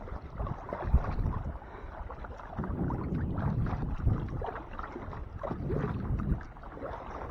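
Kayak paddle strokes in lake water: irregular swishing and splashing swells a second or two long, with small drips and knocks.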